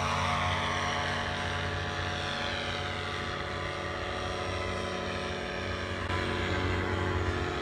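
Powered paraglider's engine and propeller droning steadily overhead, its pitch falling slightly at first.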